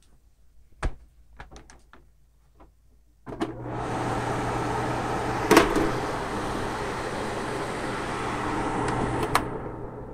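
Lakewood LPRW3 window fan switched on after a few clicks and knocks from handling its controls: about three seconds in the motor starts and the blades run with a steady rush of air over a low hum, with a couple of clicks from the buttons. The sound dies away near the end.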